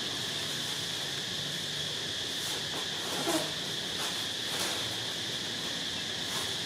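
Steady high-pitched chirring of insects, with a few faint rustles about three to four seconds in.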